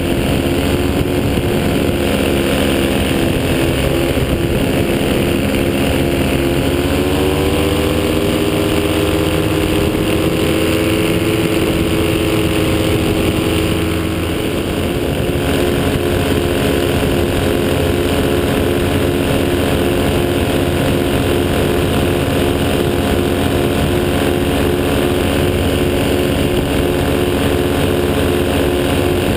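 Paramotor engine and propeller running steadily in flight. The engine note rises about seven seconds in, holds there, then drops back about halfway through.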